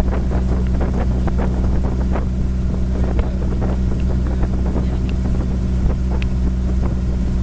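Outrigger boat (bangka) engine running at steady cruising speed, a continuous low drone. Over it, water splashes irregularly against the hull, and wind buffets the microphone.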